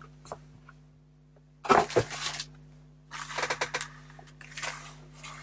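A clear plastic parts bag holding a model-kit sprue crinkling as it is handled and laid on the cutting mat, in three short bursts after a second or so of quiet.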